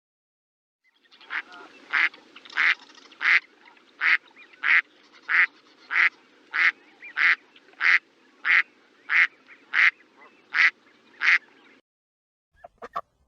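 Duck quacking in a steady series, about three quacks every two seconds, over a faint steady background noise. The quacking stops near the end, followed by a few short clicks.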